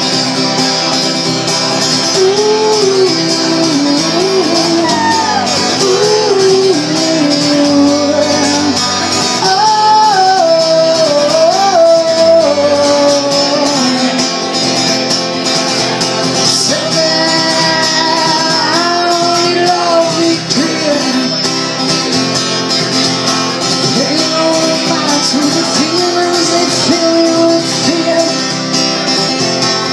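A man singing into a microphone while strumming an acoustic guitar, in a live solo performance.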